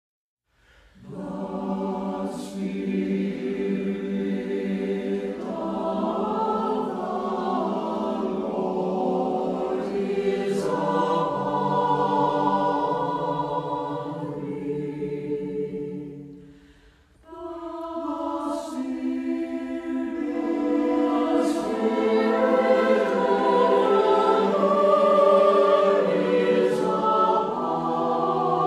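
A choir singing sustained chords, with sung words, pausing briefly about seventeen seconds in before the next phrase.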